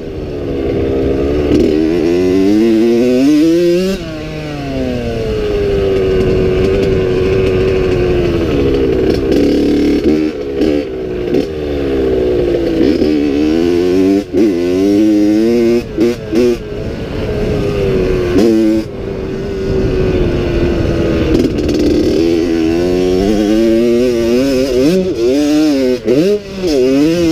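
Honda CR80 two-stroke dirt bike engine being ridden hard, its pitch rising and falling over and over with throttle and gear changes. There are short throttle cuts, coming fast near the end.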